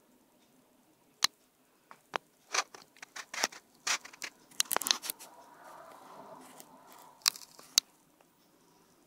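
Irregular sharp clicks and crackles close to the microphone, coming thick and fast mid-way, then a soft rustle and two last clicks before it falls quiet.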